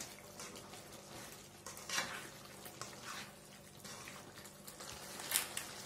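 A black slotted spatula stirring chicken curry in a metal pan: a few soft scrapes and knocks against the pan over a faint, steady sizzle of the cooking gravy.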